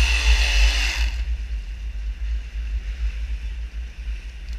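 Low steady rumble of a fishing boat running at sea, under a loud hiss with a faint whistle that cuts off suddenly about a second in.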